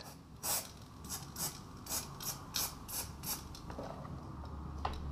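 Aerosol can of spray paint being worked in a quick run of short, hissy strokes, about three a second, spraying a pair of climbing shoes black.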